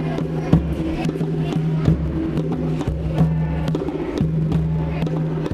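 Hand drums, including a wooden conga, struck by hand in a busy, quick pattern of sharp slaps and tones. A steady low note is held underneath.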